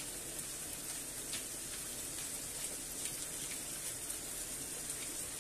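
Pork belly steaks sizzling gently in olive oil in a frying pan: a steady, quiet hiss, with a few faint clicks as peppercorns are ground over them.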